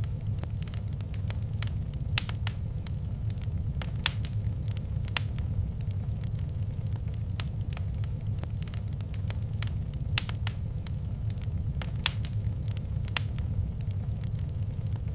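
Wood fire crackling in a fireplace: irregular sharp pops and snaps over a steady low rumble of the flames, with a few louder pops here and there.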